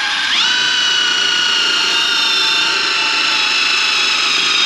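Cordless drill spinning up about a quarter second in, then running steadily at speed while driving a screw into a galvanized steel bottom plate.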